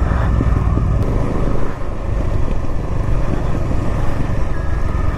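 Motorcycle engine running as the bike rides slowly across open dirt ground, heard from the rider's seat as a steady low rumble that dips briefly a little under two seconds in.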